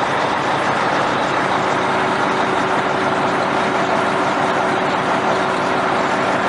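An engine running steadily at a constant speed, an even hum under a dense wash of noise.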